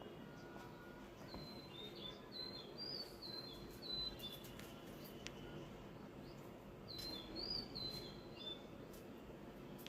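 A small bird singing two phrases of short, high chirping notes, the first about a second and a half in and the second about seven seconds in, over a faint steady background hiss.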